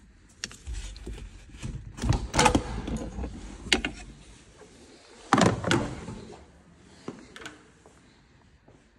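A few sharp knocks and clunks, loudest about two and a half seconds in and again about five and a half seconds in, over low rumbling handling noise on the microphone.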